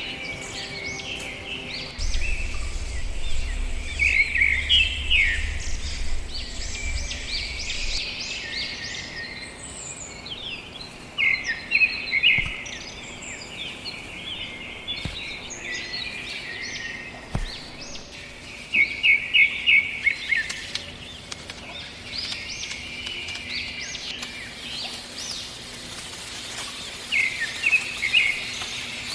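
Birds chirping and singing in repeated quick runs of chirps, over a steady outdoor background, with a low rumble under them for a few seconds early in the stretch.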